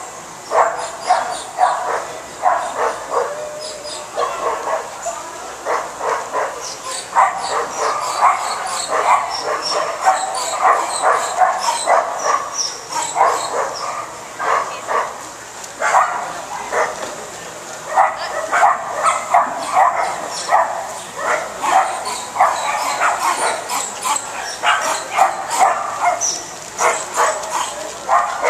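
Dogs barking and yipping over and over, with short lulls.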